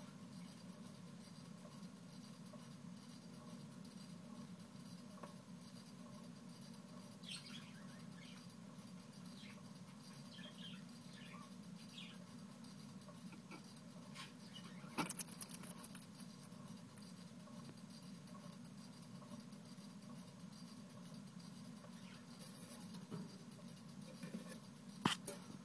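Faint small clicks and ticks of a bearded dragon eating potato bugs from a small bowl, its jaws crunching and snout knocking the bowl, with a short flurry of louder clicks about halfway through and again near the end, over a low steady hum.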